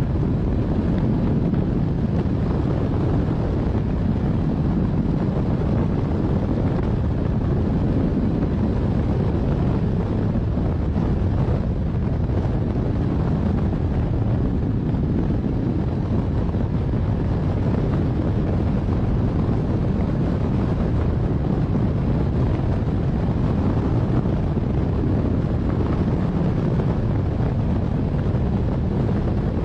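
Steady rushing wind buffeting the camera microphone during a hang glider flight, a dense low roar with no breaks.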